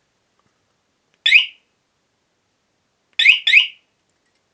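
Honda-branded scooter/motorcycle alarm unit chirping in answer to presses on its key fob: one short rising chirp about a second in, then two quick chirps near the end.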